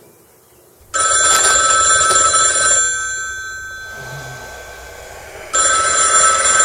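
Telephone ringing: two rings of about two seconds each, the first starting suddenly about a second in and fading away, the second starting near the end.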